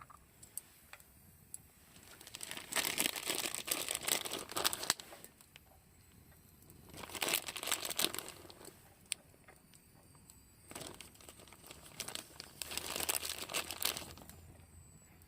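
Crinkling and rustling handling noise in three bouts: about two seconds in for a few seconds, again briefly around seven seconds, and from about eleven to fourteen seconds.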